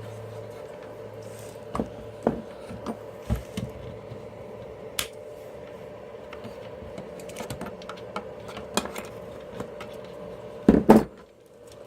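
Scattered small clicks and knocks of parts and tools being handled on a workbench while a dismantled electric blower is examined, over a steady low background hum, with a louder double knock near the end.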